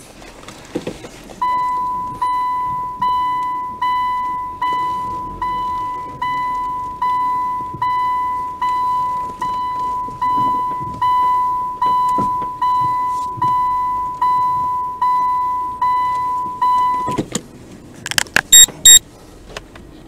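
A car's electronic warning chime dinging over and over, a little more than once a second, each ding a single bright tone that fades quickly. It stops abruptly, followed by a quick cluster of loud sharp clicks.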